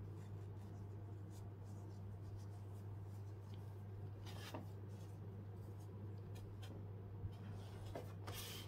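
Faint handling sounds of gloved hands: light rubbing and small taps as a foam windscreen is worked onto a miniature microphone and the mic and its case are set down, with a brief rustle about halfway and another near the end, over a steady low hum.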